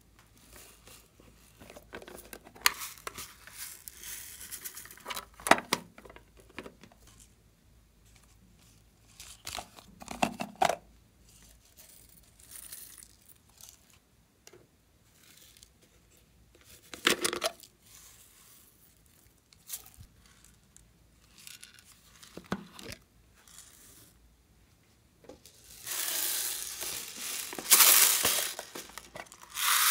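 Sprinkles and confetti poured onto a tray of slime, and plastic toy containers handled, in scattered short crackly bursts. A longer, louder stretch of plastic rustling and handling comes near the end.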